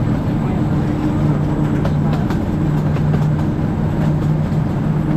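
Miniature passenger train running along its track, heard from aboard: a steady low engine hum with occasional faint clicks.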